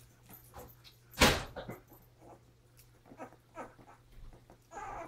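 Young puppies, about three weeks old, making scattered short squeaks and whines, with one loud sudden sound about a second in.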